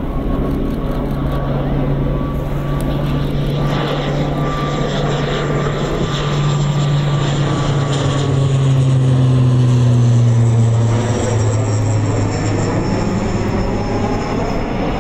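CASA C-295M's twin Pratt & Whitney Canada PW127G turboprops in a low flypast: a steady propeller drone that gets louder as the aircraft comes overhead, peaks about two-thirds of the way through with a drop in pitch as it passes, then eases off as it flies away.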